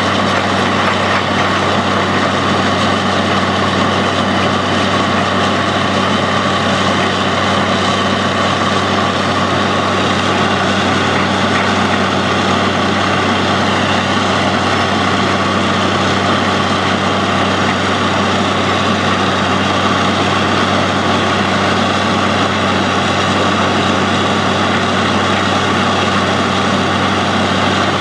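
Truck-mounted borewell drilling rig running steadily while drilling, its engine and machinery making a loud, even noise with no change in pitch or level.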